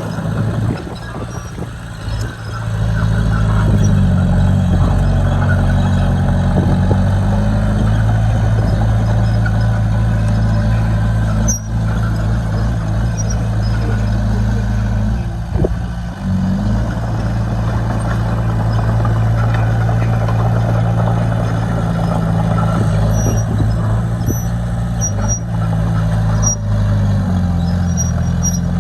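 Heavy diesel engine of earthmoving equipment running under load, steady after picking up about two to three seconds in.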